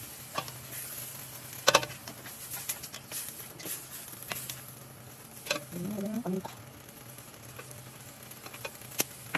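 Julienned vegetables sizzling in a stainless steel pan as they are stir-fried, with scattered scrapes and clinks of the utensil against the pan and one sharp knock about two seconds in.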